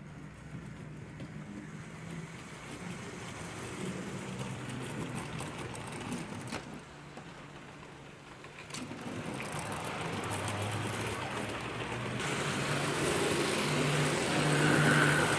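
Model train locomotive running along the track, its small electric motor whirring with a steady hum. It grows louder about two thirds of the way through, loudest near the end, with a couple of sharp clicks before that.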